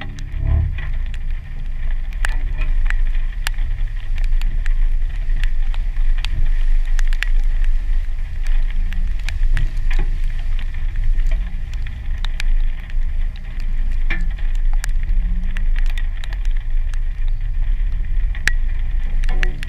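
Jeep Wrangler driving slowly through standing water on a muddy trail in rain, heard from a camera outside on the hood: a steady low rumble, with many sharp ticks of raindrops striking the camera.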